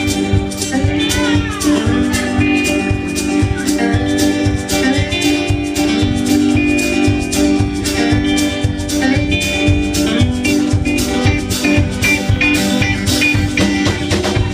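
Live band playing an instrumental passage: acoustic and electric guitars over upright bass and a drum kit keeping a steady beat. A guitar bends notes about a second in.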